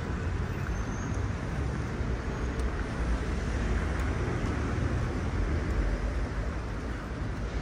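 Steady city traffic noise: a continuous low rumble of cars on a wet street.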